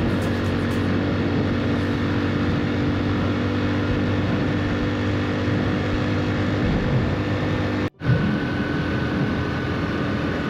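Hero Splendor XTEC motorcycle's single-cylinder engine running at a steady highway cruise, under wind and road noise on the moving camera's microphone. The sound cuts out for an instant about eight seconds in, then carries on unchanged.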